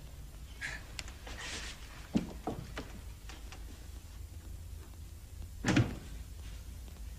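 A door being handled and opened: a few light knocks and clicks, then one louder thump a little before the end, over a steady low hum.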